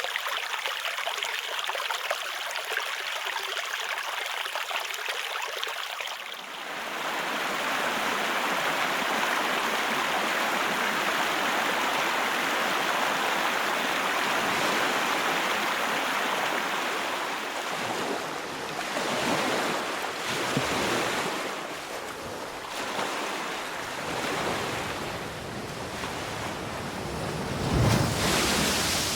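A run of recorded water sound effects, one after another. A thin, hissing flow of water comes first; about six seconds in it gives way to a fuller, louder rush. In the last third, water sounds surge and ebb in uneven swells, the strongest near the end.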